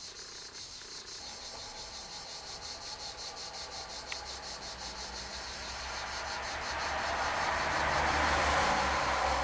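Steady, high-pitched, fast-pulsing chirring of insects. Over the second half a broader rushing noise with a low hum swells up and is loudest near the end.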